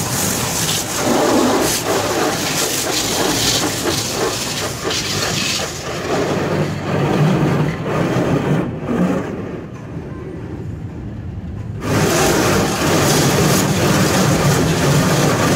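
Automatic tunnel car wash heard from inside the car: hanging cloth curtain strips slapping and dragging across the windshield and body, over a steady hiss of spraying water and running machinery. About halfway through the hiss and slapping die down, then come back suddenly about three seconds later.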